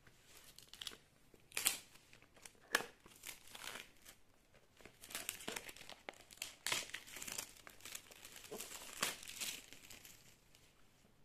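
Fingers handling and picking at a small cardboard earbud box: irregular scratches, rubs and small taps as the box is turned over and felt along its edges for a way to open it, with a few sharper clicks among them.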